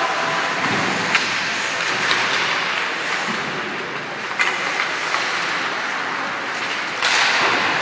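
Ice hockey play: skate blades scraping and carving on the ice, with sharp clicks of sticks and puck every second or so, and a louder spell of scraping hiss near the end.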